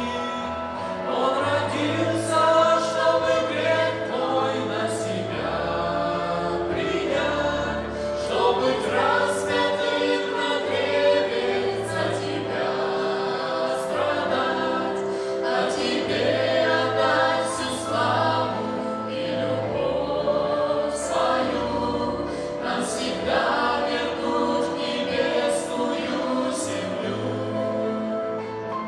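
Mixed vocal ensemble of men's and women's voices singing a Christian song in harmony through microphones, over an instrumental accompaniment with a steady low bass line.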